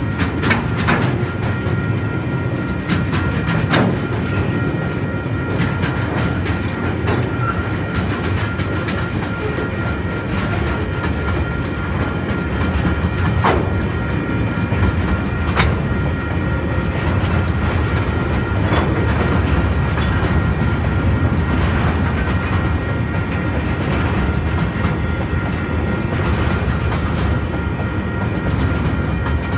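Tasrail freight train's wagons rolling past close by, first loaded log wagons and then hopper wagons: a continuous heavy rumble with wheels clacking over the rail joints and scattered sharp clicks and squeaks.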